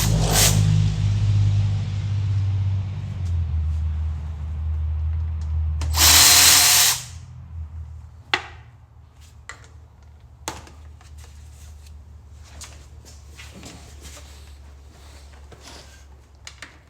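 A power ratchet runs in short bursts of about a second, once right at the start and again about six seconds in, backing out the 10 mm transmission pan bolts. Between and after the bursts come small metal clicks and knocks.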